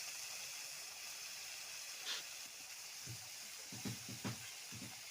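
Food frying in a pan with a steady sizzling hiss, and a few short soft knocks about three to five seconds in.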